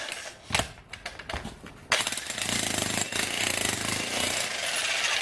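VEVOR 2200-watt electric demolition jackhammer with a chisel bit breaking up concrete: a short burst of hammering, a lull with a few sharp knocks, then steady hammering from about two seconds in.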